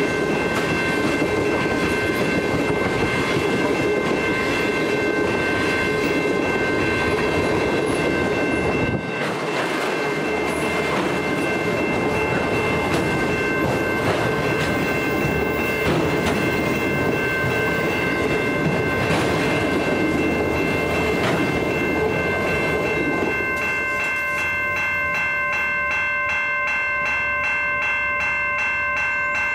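Freight cars rolling over a level crossing, wheels clattering on the rails, while the crossing's warning bell rings steadily. About three-quarters of the way through, the train noise drops away as the last car clears, leaving the bell ringing on its own in an even repeating pattern.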